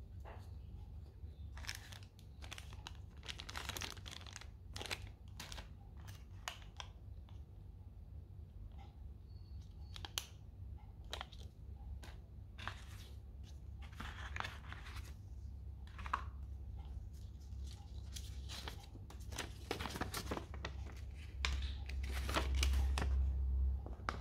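Unboxing packaging being handled: irregular rustling and crinkling of paper, cardboard and plastic wrap, ending with a folded paper leaflet being opened out. A steady low hum runs underneath and swells near the end.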